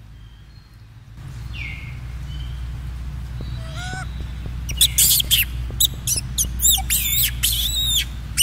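Baby macaque giving a rapid series of high-pitched squeals, about three a second, starting about five seconds in over a low steady rumble.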